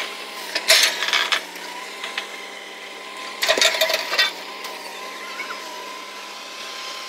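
Truck-mounted borewell drilling rig running with a steady machine drone, broken twice, about a second in and again about three and a half seconds in, by short bursts of metallic clattering.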